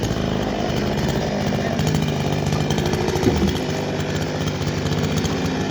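Chainsaw engine running steadily, with one brief louder moment about three seconds in.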